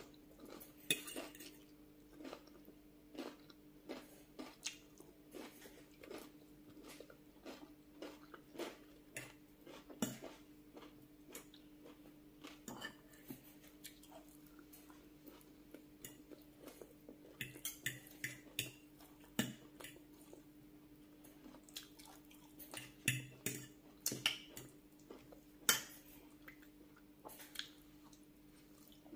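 Metal spoon and fork clinking and scraping against a glass bowl of rice and curry in many short, irregular clicks, with eating and chewing sounds between them. A faint steady hum runs underneath.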